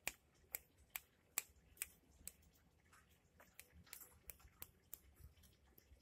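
A faint series of sharp, dry clicks, a little over two a second at first, then quicker and irregular.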